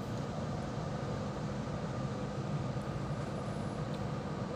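Steady machine hum with a faint whine, as of an appliance running.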